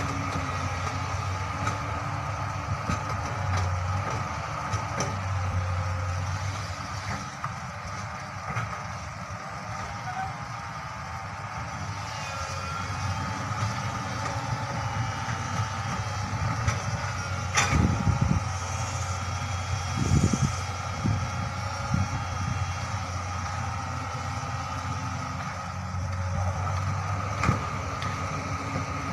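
Hydraulic crawler excavator's diesel engine running steadily as it digs and swings loads of soil into a dump truck. There are a few sharp knocks and heavy thuds about eighteen and twenty seconds in.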